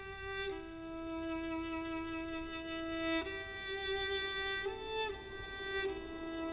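Solo violin playing a slow melody of long bowed notes, each held for one to three seconds, with a brief step up in pitch and back about two-thirds of the way through.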